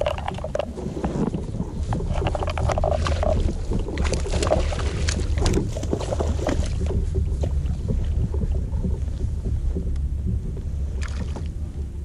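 A big hooked fish thrashing and splashing at the surface beside a kayak during the fight, in repeated sharp splashes over a steady low rumble.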